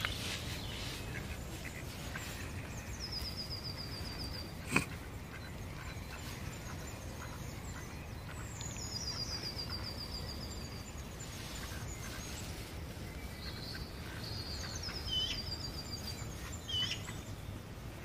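Outdoor ambience with a small songbird singing a short, high, descending trilled phrase three times, about every six seconds. A single sharp click comes about five seconds in.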